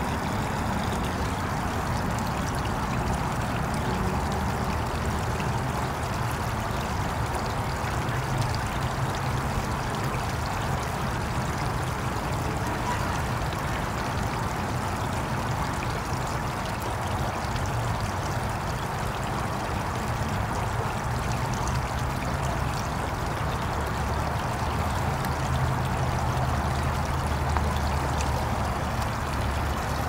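Creek water trickling over a flat stone ledge and splashing into the pool below, a steady, unbroken sound.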